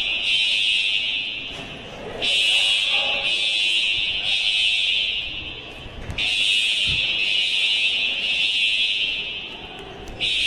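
Building fire alarm horns sounding a harsh, high-pitched tone in repeating cycles about every four seconds. Each cycle fades slightly and breaks off briefly before the next one starts.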